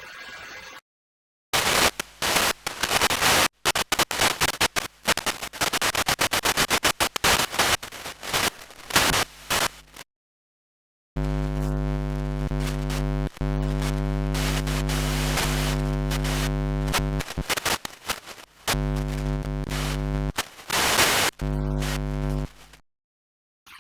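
Two separate tortured-vinyl sound effects. First come harsh bursts of crackly record noise that stutter on and off rapidly for several seconds. After a short silence, a loud low pitched drone holds steady, then is chopped into stuttering pieces toward the end.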